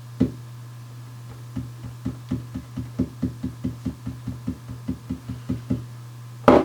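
Rapid knocking on a hard surface: a single knock at the start, then a quick run of about four to five knocks a second, and one louder knock near the end, over a steady low hum.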